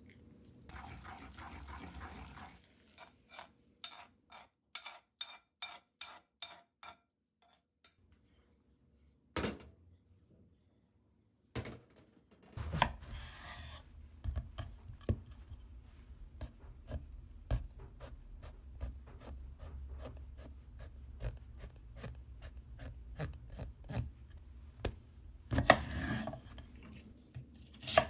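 A wooden pestle grinding and mixing sardine paste in a ceramic suribachi, followed by a run of short regular knocks about two a second. Then a kitchen knife slicing eggplant and chopping green peppers on a wooden cutting board, in many sharp cuts.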